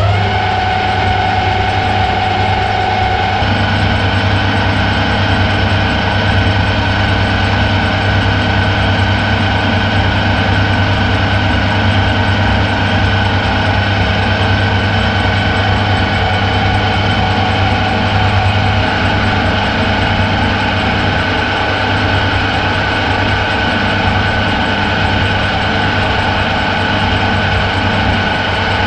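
Metal lathe switched on just before and running steadily, its motor and gearbox giving a loud, even hum with a few steady whining tones.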